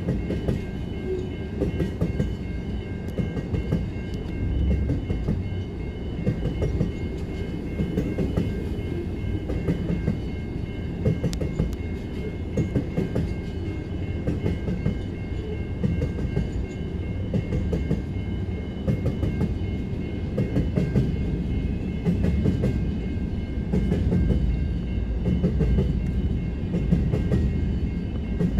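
Grain hopper wagons of a diesel-hauled freight train rolling past a level crossing: a steady low rumble with frequent clicks of wheels over the rail joints. Over it the crossing's warning bell rings on in a steady high tone.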